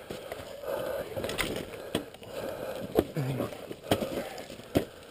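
Scuffing and crunching on rocky gravel, broken by about four sharp knocks, as a stranded heavy motorcycle is being manhandled.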